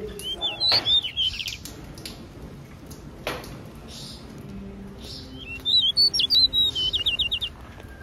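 Small cage finches chirping in two short bursts of quick, bending notes, the second ending in a fast run of repeated notes, with a few sharp clicks between them.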